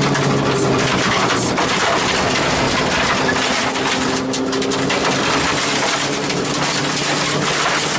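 Rally car at speed, heard from inside the cabin: the engine runs hard, its pitch shifting with the throttle, under a steady hiss and spatter of tyres and loose stones hitting the underbody.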